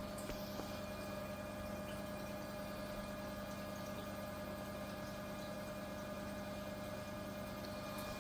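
Steady electrical hum of running aquarium equipment: a few unchanging tones over a faint hiss.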